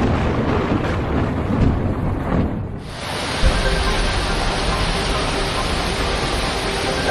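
Thunder rumbling through rain, then after a cut about three seconds in, a steady heavy rush of torrential rain and fast-flowing floodwater.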